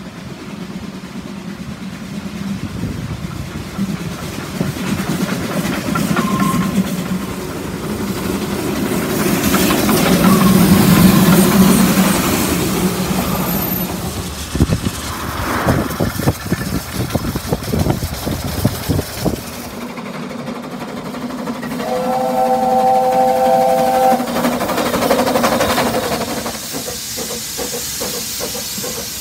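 Narrow-gauge steam locomotives running with coaches: a steady rumble of wheels on the track with a run of sharp exhaust beats a little past halfway. About three-quarters through, a steam whistle sounds for about two seconds as a chord of several notes, followed by steam hissing.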